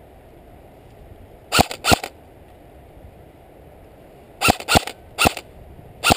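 Airsoft electric rifle firing single shots: two quick shots about a second and a half in, then four more near the end, each a short, sharp snap with a brief motor whine.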